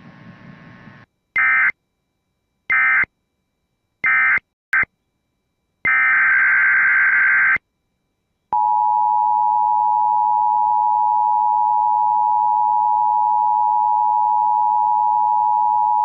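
Emergency Alert System tones. First come three short SAME digital data bursts, the end-of-message code, about a second and a half apart, then a short fragment and one longer data burst. About halfway the steady EAS two-tone attention signal (853 and 960 Hz) begins and holds for about eight seconds.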